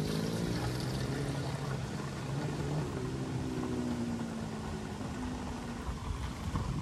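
Motor-driven water pump running, a steady hum that wavers a little in pitch, with water pouring and splashing beneath it. The flow is not very strong, but enough to water the plants.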